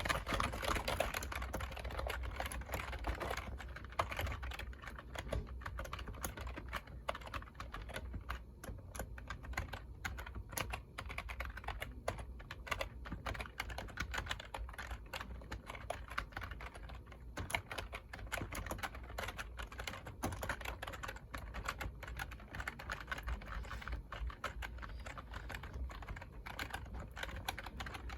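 Continuous typing on a computer keyboard: a dense, irregular stream of key clicks, with a steady low hum underneath.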